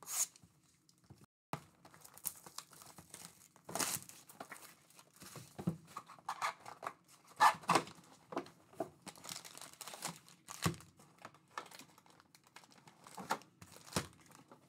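Shrink-wrap cellophane on a 2023-24 Panini Mosaic NBA hobby box being slit, torn off and crinkled, then the cardboard box opened and its foil packs pulled out and stacked: irregular rustling and crackling with occasional sharp knocks.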